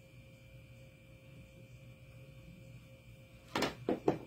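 A hot glue gun set down on the craft table and a tool picked up: three quick knocks near the end, the first the loudest, over a faint steady hum.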